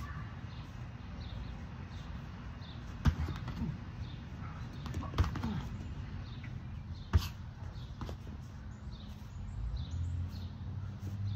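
Boxing gloves landing punches during sparring: three sharp smacks about two seconds apart, with lighter thuds of footwork and blows in between.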